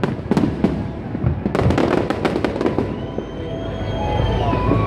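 Aerial fireworks shells bursting in rapid succession, a quick string of bangs and crackles that is thickest in the first half.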